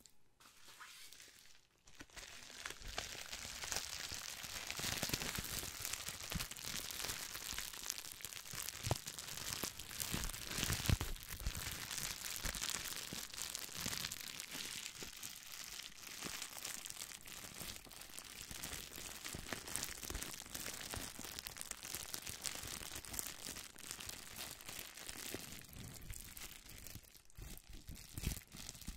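Green plastic bubble wrap crumpled and squeezed in the hands close to the microphone, a dense, continuous crinkling and crackling made of many small clicks. It starts about two seconds in.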